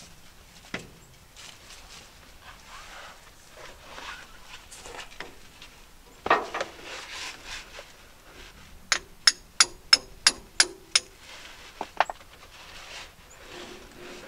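Tapping on the seized pin of a tractor PTO shaft to free it and seat the shaft: a run of seven sharp ringing metal taps, about three a second, and two more shortly after. Before them, scraping and a louder clunk as the shaft is worked by hand.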